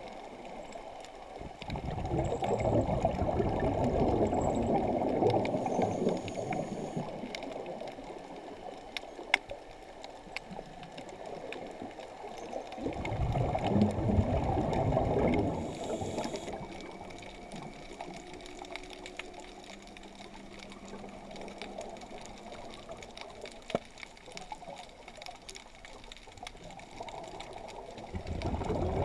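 Scuba diver's exhaled bubbles rumbling and gurgling past an underwater camera in long surges, one breath about every twelve seconds, with quieter water noise between.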